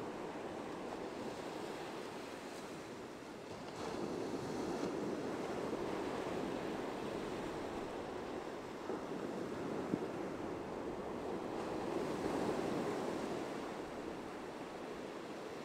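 Ocean surf breaking and washing up a sandy beach: a continuous rush of waves that swells about four seconds in and again around twelve seconds.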